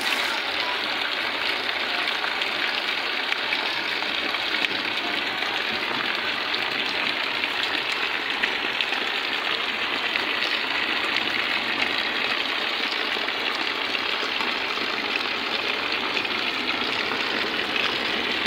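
Heavy downpour falling steadily onto standing water and wet mud, an even hiss of drops splashing into the puddles.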